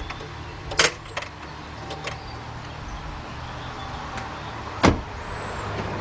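A 2013 Ram 1500 with the 5.7 Hemi failing to start: a few sharp clicks as the key is turned, with no cranking, the typical click of a starter that is not getting enough current from a weak battery reading 9.6 volts. A louder single knock near the end as the truck door shuts.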